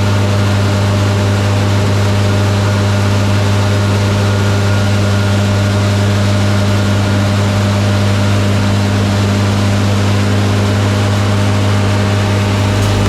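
Heavy farm machinery running steadily: a deep, unchanging engine drone with a few faint higher steady tones over a wash of mechanical noise.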